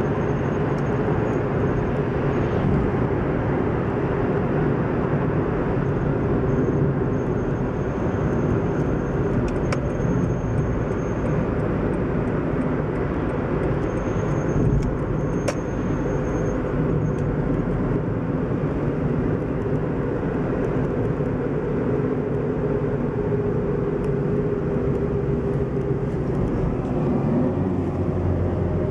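Car driving at road speed, heard from inside the cabin: a steady mix of engine hum and tyre and road noise.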